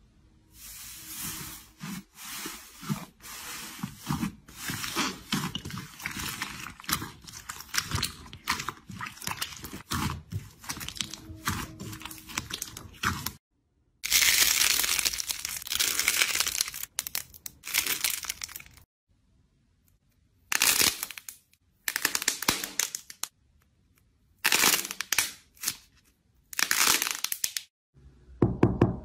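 Slime squeezed and pressed by hand close to the microphone, making dense crackling and popping, in several short stretches cut off abruptly between clips.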